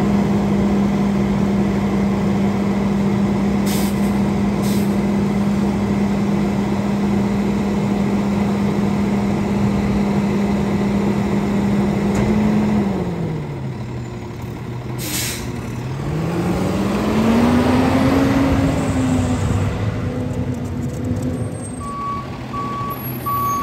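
Rear-loader garbage truck engine held at raised revs to drive the hydraulic packer, dropping to idle about halfway through, then revving up and back down again as the packer cycles. A few metal clanks, and backup beeps start near the end.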